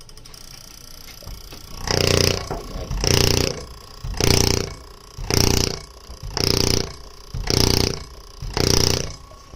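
Diesel injector spraying under hand-pumped test pressure: a buzzing hiss on each pump stroke, seven even bursts about once a second, starting about two seconds in.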